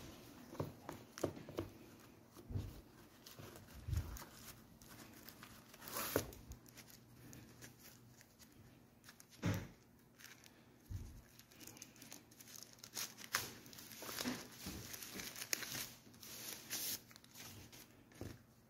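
Hands handling an instruction booklet and a thin plastic wrapper: irregular paper rustling and plastic crinkling with a few light knocks, busiest past the middle.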